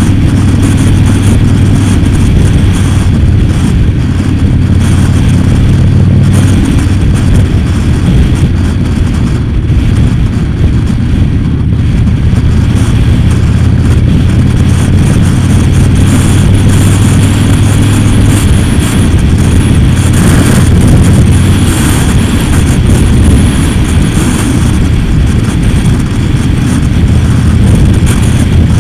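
Motorcycle engine running steadily at cruising speed, heard on board the moving bike, with wind and road noise.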